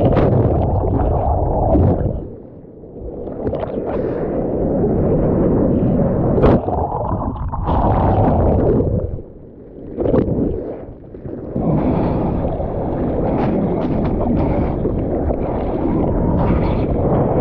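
Strong wind buffeting the microphone together with water sloshing and gurgling in the surf. The noise drops away sharply twice, once a couple of seconds in and again about two-thirds of the way through.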